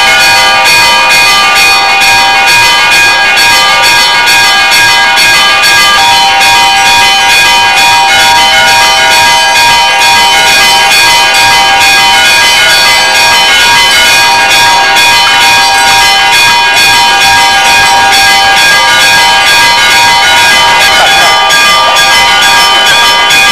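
Church bells ringing a loud, continuous, rapid peal, with strike after strike overlapping into one steady ringing.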